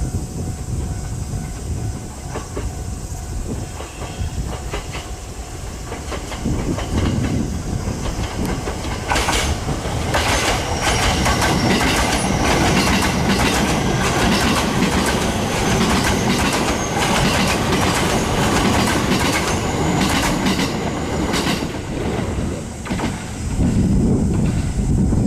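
A train passing at a level crossing, its wheels clacking over the rail joints; the sound grows louder about nine seconds in as the cars go by.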